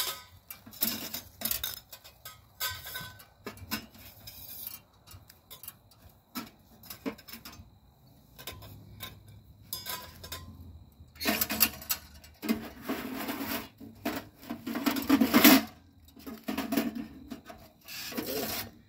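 Parts of a stainless steel camp wood stove clinking, knocking and rubbing against each other as they are handled and unpacked. A louder, denser stretch of scraping handling noise comes a little past halfway.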